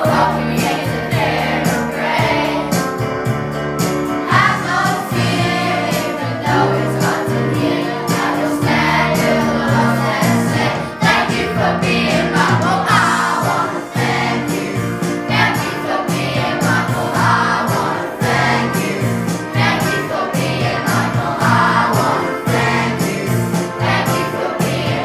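A song with sung vocals over a steady beat.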